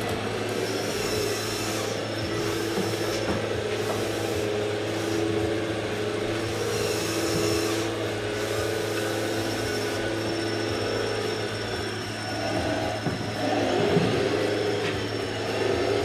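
Motors of a radio-controlled Volvo crawler excavator whirring as it works, the pitch wavering up and down with each movement of the boom and bucket, over a steady low hum.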